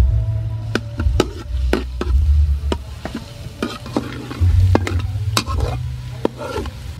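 Metal spatula stirring chopped garlic frying in oil in a stainless steel wok: a sizzle with sharp, irregular clinks and scrapes of the spatula against the pan. A low rumble comes and goes underneath.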